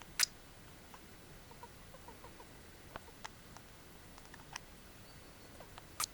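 Pet mouse sneezing: two sharp little sneezes, one just after the start and one near the end, with faint ticks and tiny squeaky sounds in between.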